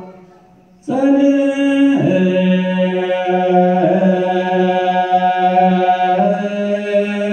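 Ethiopian Orthodox liturgical chant, the misbak (the psalm verse sung before the Gospel) of Palm Sunday. After a brief pause the voices come back in about a second in, singing long held notes that shift pitch slowly.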